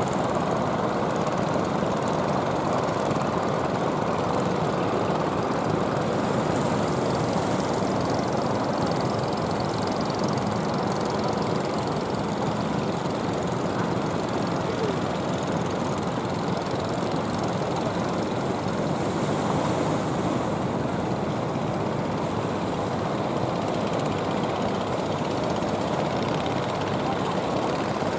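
Steady drone of several wooden fishing boats' inboard engines running at speed.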